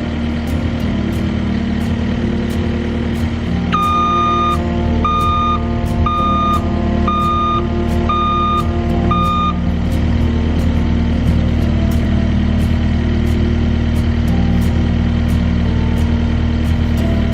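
A vehicle engine running steadily, with its backup alarm beeping six times about a second apart while the machine reverses.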